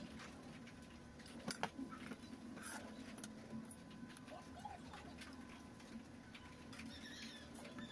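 Faint clicks and small rattles of plastic multi-pin wire connectors being handled and plugged in, with a sharper pair of clicks about a second and a half in, over a steady low hum.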